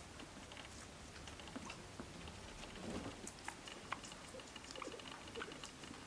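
Guinea pigs chewing their food, heard faintly as scattered small crunches and clicks.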